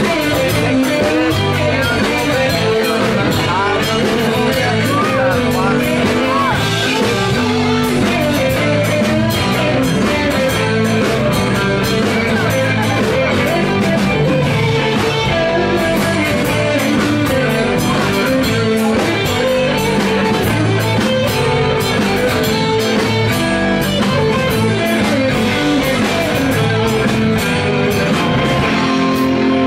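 Live rock band playing loud and steady: electric and acoustic guitars over a drum kit.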